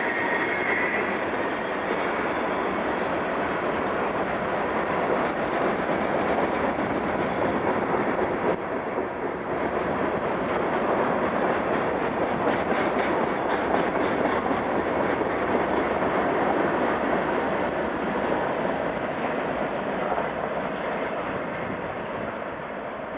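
Freight train of covered hopper cars rolling past, the steel wheels clicking over rail joints, with a brief squeal of wheels in the first second. The noise fades near the end as the last car goes by.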